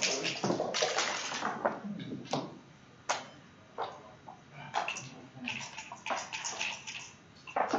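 Backgammon dice shaken in a dice cup, rattling, then thrown onto the board with a couple of sharp clacks about two to three seconds in; scattered clicks and taps follow.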